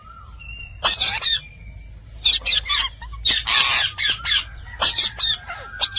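Indian ringneck parakeet (rose-ringed parakeet) giving repeated harsh squawks in short bursts, about one a second, with a few brief whistled notes between them.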